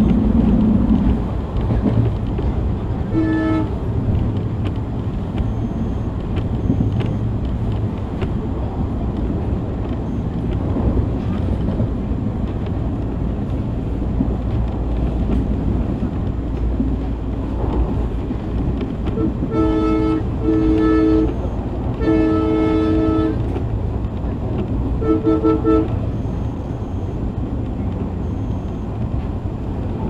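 Passenger train running steadily, with the rumble of the coach and wheels heard through an open window. The locomotive's horn gives a short toot a few seconds in, then a series of blasts between about twenty and twenty-six seconds in: two short ones, a longer one and a final short one.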